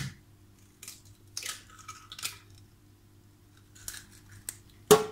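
An eggshell being pulled apart by hand and the egg dropping into a glass jar: a few faint crackles and scrapes, then a sharp click near the end.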